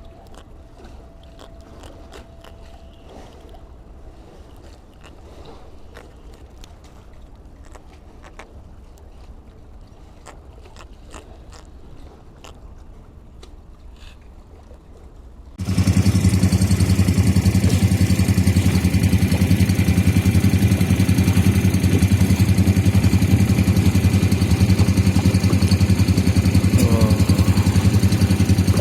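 Scattered faint clicks, then about halfway through a boat's engine cuts in suddenly, loud, and runs steadily with a low, even hum.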